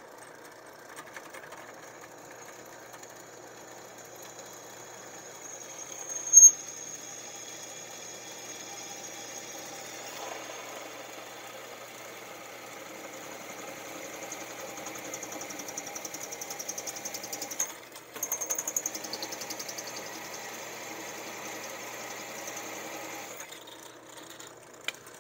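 Drill press running with a 21/64-inch twist bit drilling through a metal bar clamped in its vise. There is one sharp, loud squeak about six seconds in and a brief break before two-thirds of the way through; then the bit runs on into the vise beneath, and the drill stops shortly before the end.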